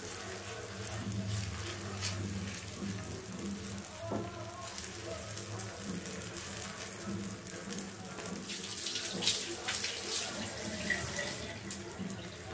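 Ragi adai dough sizzling on a hot cast-iron tawa: a steady hiss with scattered crackles, over a low steady hum.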